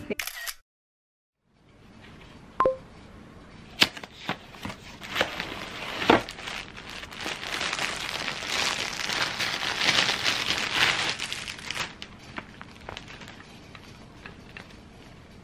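Clear plastic packaging crinkling and rustling as a heating pad is pulled from its bag. A few sharp taps and clicks come first, then the crinkling thickens and is loudest for several seconds in the middle before fading down.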